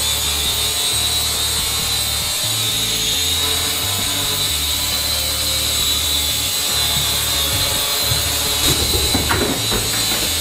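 Syma X5C toy quadcopter in flight, its small brushed motors and propellers buzzing steadily with a high whine. A scatter of light clicks and rattles comes about eight and a half seconds in.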